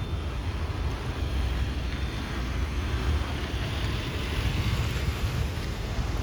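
Steady low rumble of a Boeing 787-9 Dreamliner's jet engines, with wind buffeting the microphone. A hiss swells about halfway through.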